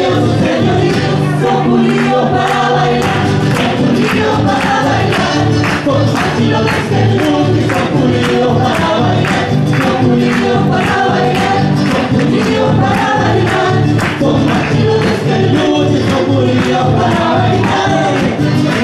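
Live traditional Chilean folk music: several voices singing together over a steady percussive beat.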